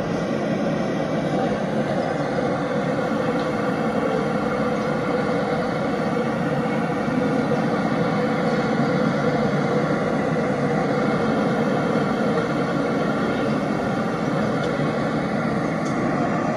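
Steady city street noise of passing road traffic, an unbroken drone that holds level throughout.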